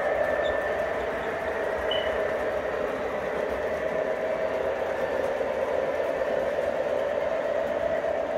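O scale model grain train running on the track, a steady mechanical hum of its motors and rolling wheels with a few faint ticks.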